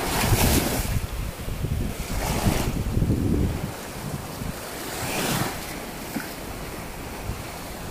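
Small sea waves washing onto a sandy shore with wind buffeting the microphone; the noise swells near the start, about two seconds in and again about five seconds in.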